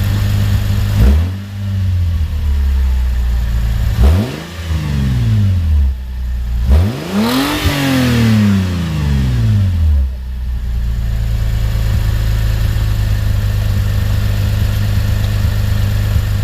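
Lexus IS250 V6 with a loud open exhaust idling and revved three times, the third rev the longest and highest, then settling back to idle. A turbo whistle fitted in the exhaust cutout adds only a faint whistle on the revs, mostly drowned by the exhaust.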